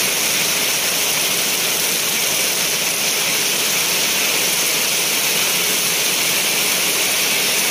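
Heavy rain pouring down steadily, the drops splashing into mud and puddles.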